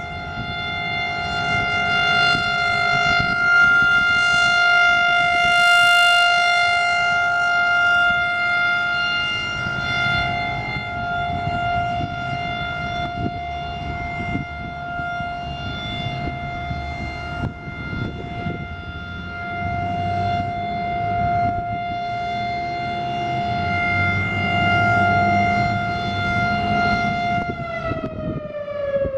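Federal Signal Thunderbolt 1000 outdoor warning siren sounding its steady alert tone, the level slowly swelling and fading as the siren rotates. Near the end the pitch begins to fall as the siren starts winding down at the close of its two-minute alert.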